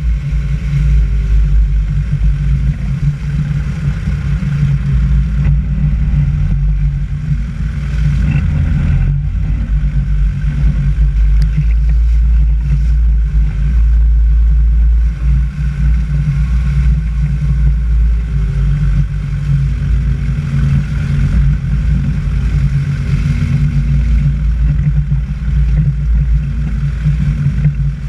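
A vehicle driving along a wet, muddy dirt road: steady, loud engine and road noise with a heavy low rumble throughout.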